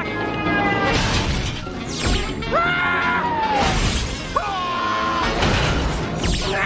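Cartoon crash sound effects: a quick falling swish and then a loud smashing crash, again and again every couple of seconds, as heavy vehicles drop and pile up, over music.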